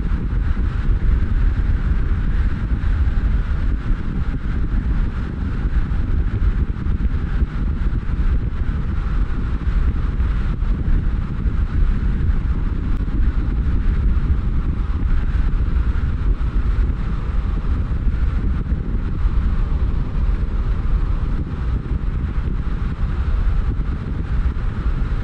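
Car driving along a road: a steady, even low rumble of tyre and engine noise with some wind noise.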